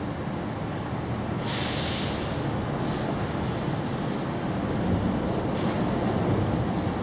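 Wind outdoors: a steady low rumble of wind on the microphone, with a few short rustling gusts through leaves, the strongest about two seconds in.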